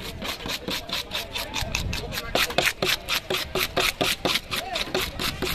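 A fish being scaled by hand: quick, regular scraping strokes of a blade against the skin and scales, about five or six a second.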